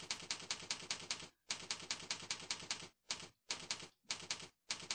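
Computer keyboard typing: quick runs of keystrokes, about eight a second, broken by short pauses, with shorter bursts in the second half.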